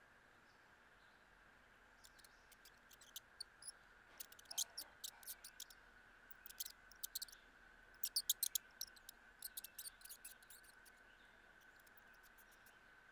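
House mouse feeding on peanut butter on a plastic bowl, making quick clusters of short, high-pitched clicks that come in runs over several seconds and are loudest about eight seconds in.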